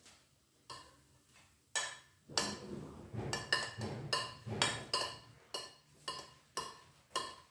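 Metal spoon scraping and tapping against a ceramic plate, pushing peas off into a glass bowl: about a dozen short clinks, sparse at first and coming every half second or so from about two seconds in.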